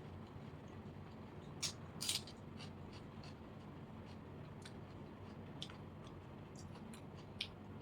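Faint eating sounds of water-soaked rice (panta bhat) with fried potato and chanachur: a few sharp wet clicks and smacks, the loudest about two seconds in and another near the end, over a low steady background.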